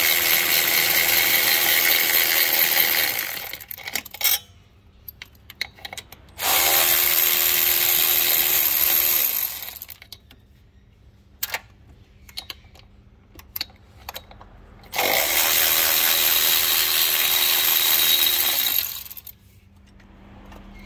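A cordless power tool spinning a long extension with a 5 mm Allen bit, undoing the turbo inlet bolts. It runs in three bursts of about four seconds each, at the start, around the middle and near the end, with a few clicks in between.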